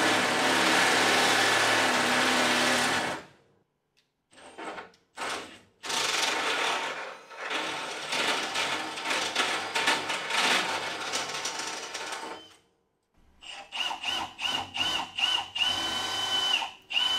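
Cordless drill boring through a truck's sheet-metal battery-box panel: two long runs of the motor under load with short pauses between, then near the end a string of short trigger bursts, each with a high whine as the bit bites into the metal.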